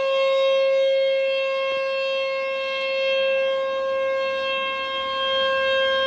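Outdoor tornado warning siren sounding a test: one steady wailing pitch with overtones, its loudness slowly swelling and fading.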